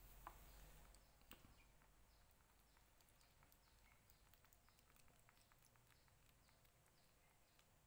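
Near silence: faint room tone with a few soft clicks and a faint run of short high chirps.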